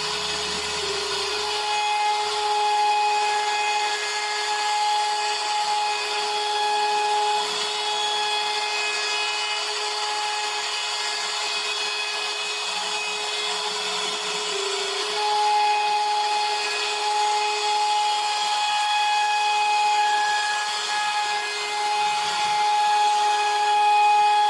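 CNC router spindle running with a steady high-pitched whine while its bit cuts into wood, over a continuous cutting hiss.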